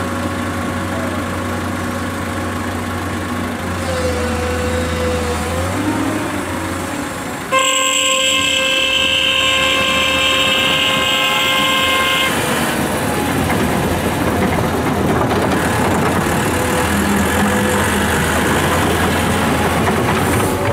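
Diesel engines run steadily at first. About seven seconds in, a loud, steady vehicle horn starts suddenly and is held for about five seconds. Then it stops, leaving rougher engine and tyre noise from the dump truck driving over dirt.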